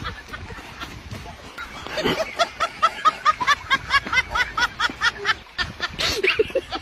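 High-pitched laughter: a fast run of short rise-and-fall notes, several a second, getting louder about two seconds in.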